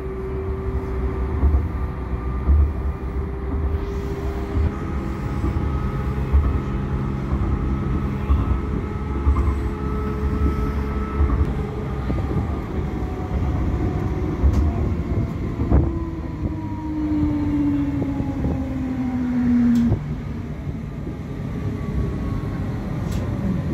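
A Siemens-Düwag NGT6DD low-floor tram in double traction running, heard from inside its rear cab: a steady low rumble with a few knocks from the wheels on the track. A traction-motor whine slowly falls in pitch as the tram slows, then stops about twenty seconds in.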